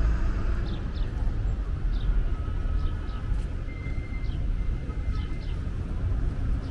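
City street ambience: a steady low rumble of traffic, with small birds giving short, downward-sliding chirps over it every second or so.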